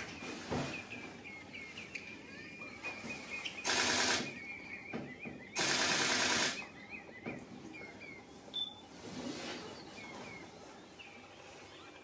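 Common redshank calling: a run of short, clipped, hooked high notes, several a second. Twice, about four and six seconds in, a loud buzzing rattle lasting under a second covers the calls.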